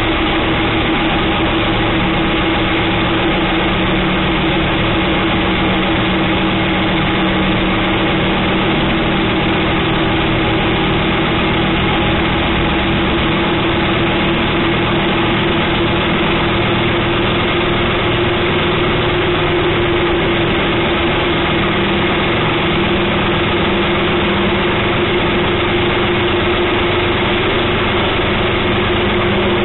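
Motorcycle engine running at a steady cruise, with wind and road noise, heard from the rider's own bike riding through a road tunnel. The engine note holds nearly constant throughout.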